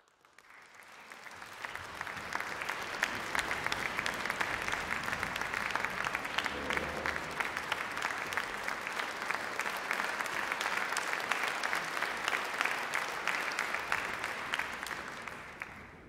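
Concert-hall audience applauding: dense, steady clapping that swells over the first couple of seconds and tapers off near the end.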